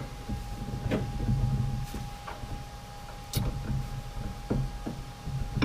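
Irregular knocks, thumps and scrapes of steel parts being handled and pushed together, as a machined bar is worked into its bore. A steady faint hum runs underneath.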